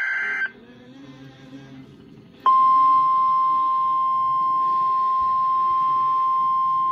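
The end of an EAS SAME digital header burst, a harsh data warble, cuts off about half a second in. After a two-second gap, the NOAA Weather Radio 1050 Hz warning alarm tone switches on and holds as one steady, loud tone.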